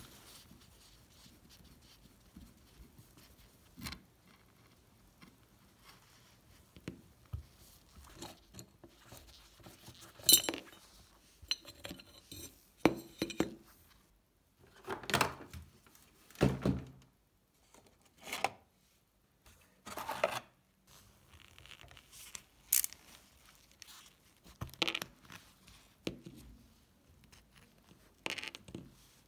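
Small metal parts of an antique gasoline blowtorch being handled, unscrewed and set down on a metal checker-plate surface: scattered clinks and knocks with a few short scrapes, irregularly spaced.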